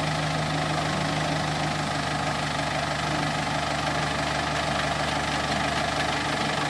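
Kubota M7040SU tractor's diesel engine idling steadily, with a constant low hum and no change in speed.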